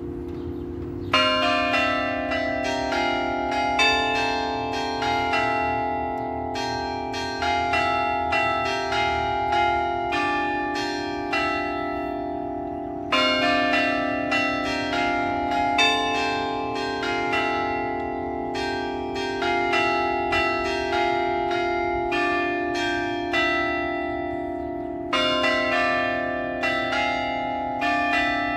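Carillon bells of a glockenspiel clock tower playing a melody: struck notes that ring on and overlap. The same phrase starts over about every twelve seconds.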